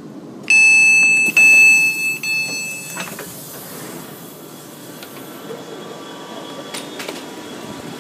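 Train passenger door's warning beeps after its 'Open' button is pressed: two loud long beeps starting about half a second in, then shorter beeps fading out by about three seconds, as the door opens. A steady hum follows.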